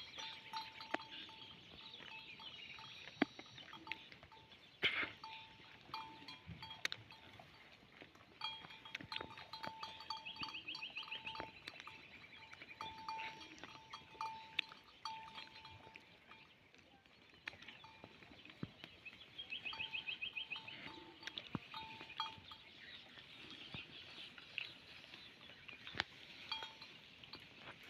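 Faint sound of goats feeding: scattered small clicks and rustles, a repeated short high chirp in the background, and two brief wavering calls, about ten and twenty seconds in.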